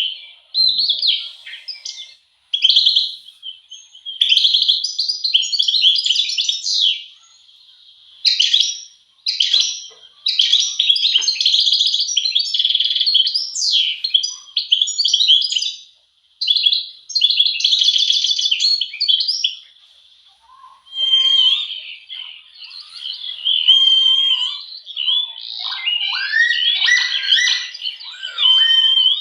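Songbirds chirping and singing in quick, busy phrases separated by short pauses. About two-thirds of the way in, lower whistled notes with falling glides join the higher chirps.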